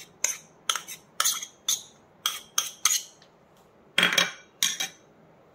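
Metal spoon scraping and tapping against a small ceramic bowl as diced onion is pushed out of it, a quick series of short scrapes, with a louder clatter about four seconds in.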